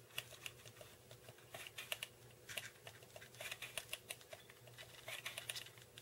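Low-temperature hot glue gun clicking faintly and irregularly, a few clicks a second, as its trigger is squeezed to feed a bead of glue into a seam in foam.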